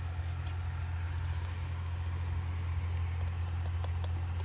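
A steady low machine hum, with a few faint clicks near the end.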